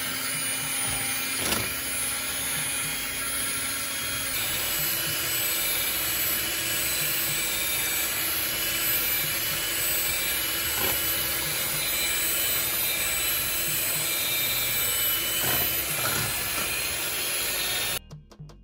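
Electric hand mixer running steadily, its beaters whipping heavy cream in a glass bowl toward stiff peaks. Its hum steps up in pitch about four seconds in, a few faint knocks come through, and the sound cuts off suddenly near the end.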